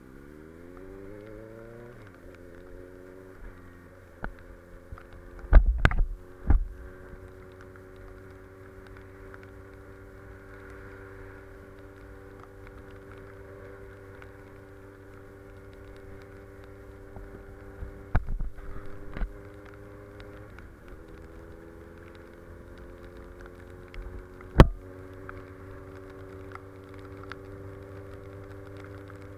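Honda CB650F's inline-four engine rising in revs as the motorcycle pulls away, then running at steady cruising revs, with a brief dip and recovery in revs a little past the middle. Several loud thumps break in, around six, eighteen and twenty-five seconds in.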